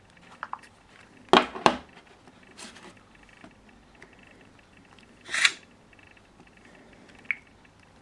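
Scattered sharp clicks and knocks, two loud ones in quick succession about a second and a half in, then a short brushing noise midway and a small tick near the end.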